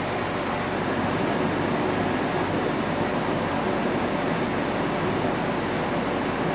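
1999 Jeep Wrangler's 4.0-litre inline-six idling steadily just after start-up on fresh oil, building oil pressure; heard from inside the cab.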